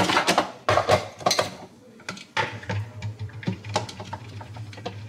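Plastic Ninja Creami pint container being handled, giving a run of separate knocks, clicks and scrapes.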